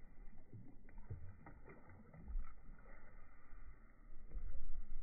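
Faint low wind rumble on the microphone and water lapping against the side of a small boat, with a few light knocks.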